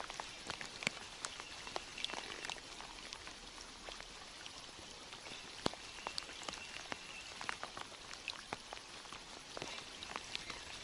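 Rain falling steadily on a river: a soft hiss with irregular sharp ticks of drops landing close by.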